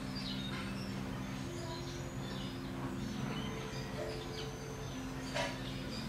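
Small birds chirping, with short high calls scattered throughout and one sharper call about five and a half seconds in, over low sustained tones that shift in pitch every second or so.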